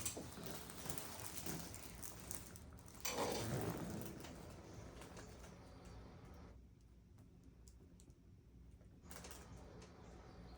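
Faint rustling and light tapping of hands and clothing during hands-on muscle work on the neck and upper back, with a louder rustle about three seconds in.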